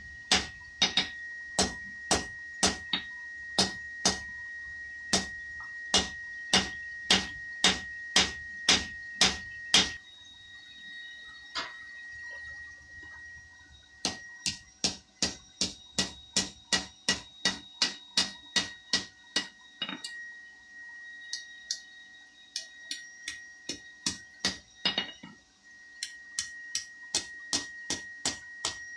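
Blacksmith's hammer striking hot steel on an anvil, each blow ringing at a steady high pitch. There is an even run of blows about one and a half a second, a pause about ten seconds in, then a faster run of strikes, and more strikes near the end.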